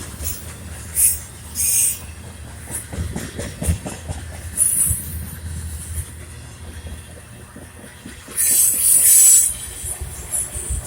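Freight train cars rolling past: a steady low rumble of wheels on rail with scattered clacks, broken by several bursts of high-pitched wheel squeal. The longest and loudest squeal comes near the end.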